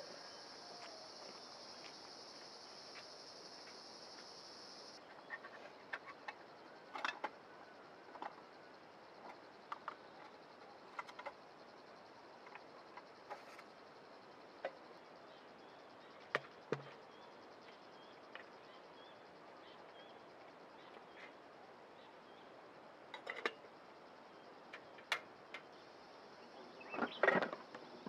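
Steady high-pitched insect buzz, louder for the first few seconds, with scattered faint clicks and knocks and a louder cluster of knocks near the end.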